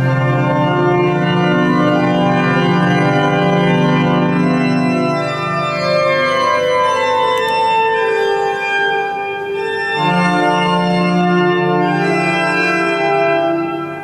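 Organ music: slow, held chords over a sustained bass. The bass drops out about five seconds in and returns at about ten seconds.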